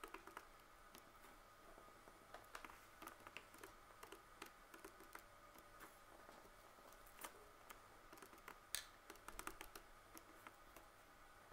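Faint clicks of a Casio scientific calculator's plastic keys being pressed in short runs, with a pen writing on paper in between.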